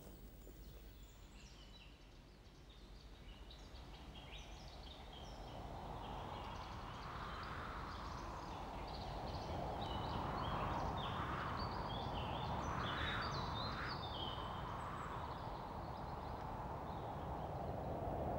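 Outdoor ambience: small birds chirping in short, repeated calls, over a background hiss that grows louder from about a third of the way in.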